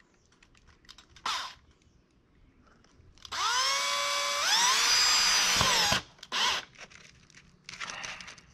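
A power drill running into a piece of wood for about three seconds. Its motor winds up, steps to a higher speed about halfway through, then stops abruptly. Short scuffs and knocks of handling come before and after it.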